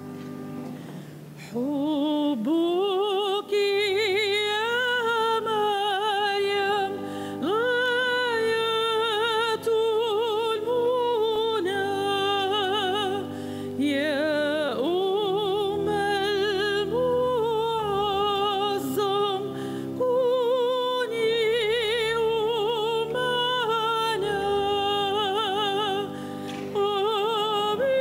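Music: a solo voice singing in several long phrases with wide vibrato, sliding up into the notes, over held instrumental chords.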